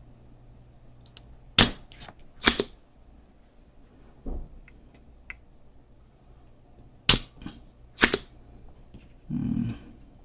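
Spring-loaded desoldering pump (solder sucker) going off with sharp snaps while solder is sucked from circuit-board pins: two pairs of loud clicks about a second apart, a softer knock between them, and a short rustle near the end.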